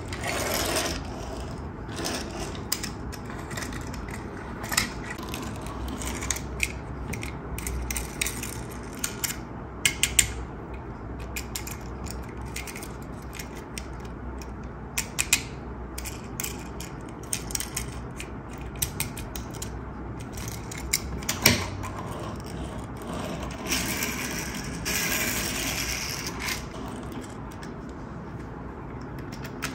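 Die-cast toy cars and a plastic toy car-carrier truck being handled on a wooden table: scattered sharp clicks and clacks of small plastic and metal parts, with a toy car's wheels rolling over the wood and up the carrier's ramp at times.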